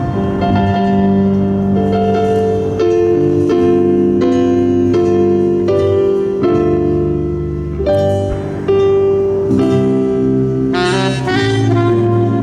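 Live jazz band playing: a melody line over piano chords and a stepping bass line.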